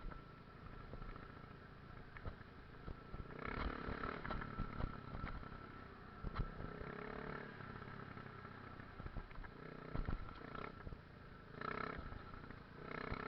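Faint enduro motorcycle engine rising and falling in several short bursts of revving, with scattered knocks.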